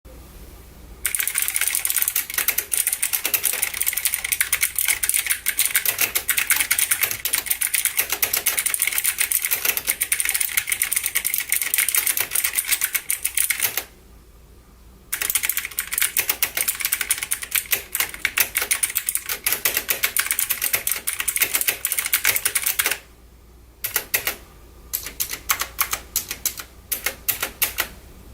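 Typing on a Logitech G512 Carbon mechanical keyboard with clicky GX Blue switches: a fast, steady stream of sharp clicking keystrokes. It pauses for about a second twice, then slows to separate single key presses near the end.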